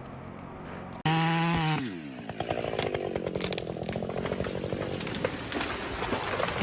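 A chainsaw cuts in abruptly about a second in at full throttle. Its pitch drops as the chain bites into the wood, and it then runs steadily under load, cutting through the timber.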